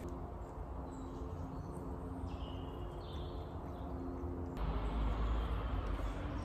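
Woodland ambience: faint bird chirps over a steady low hum. A low rumble joins about four and a half seconds in.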